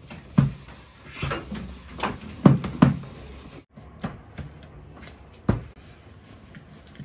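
Wooden rolling pin knocking and rolling on a steel worktable as dough is rolled out: several irregular thuds, with a brief rustle of dough about a second in.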